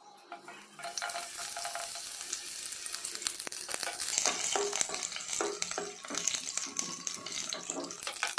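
Chopped garlic sizzling in hot oil in a nonstick pan, the sizzle starting about a second in as the garlic goes in, with light clicks and scrapes of a spatula stirring it.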